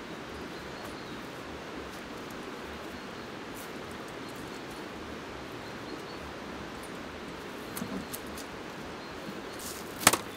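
Steady rushing background of a river flowing, with a few small clicks of camp gear being handled near the end and one sharp metallic clack about ten seconds in as a folding metal camp table is set up.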